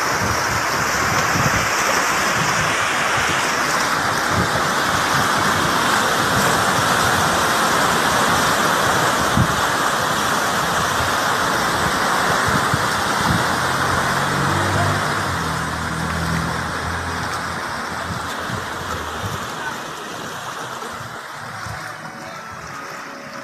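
Seawater from a tsunami surge rushing and churning around the concrete pilings of a waterfront building: a loud, continuous rush that fades gradually over the last several seconds.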